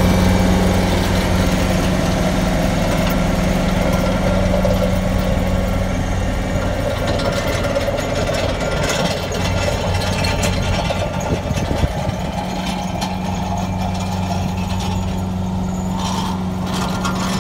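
Compact tractor engine running steadily while its hydraulics drive a homemade vibrating roller drum, giving a steady low hum. The higher part of the hum fades for a few seconds mid-way, then returns.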